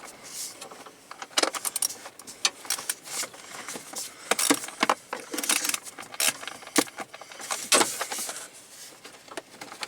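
Hand tool working a stubborn screw in a plastic cover: irregular metallic clicks and scrapes, the screw not yet letting go.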